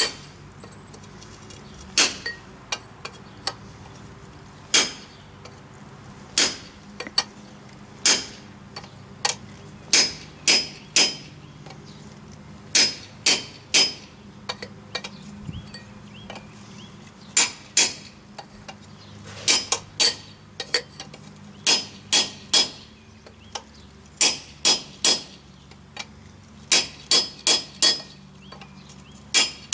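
Hammer striking a round-nose punch into steel, punching in details: sharp metallic taps with a short ring, some single and some in quick runs of two to four, with pauses between runs.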